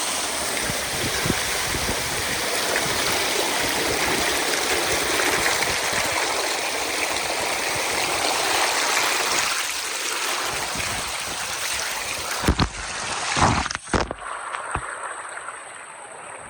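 Steady rush of water from a mountain stream cascading down a waterfall. About twelve and a half seconds in there are a few sharp knocks, and after them the rushing drops to a quieter hiss.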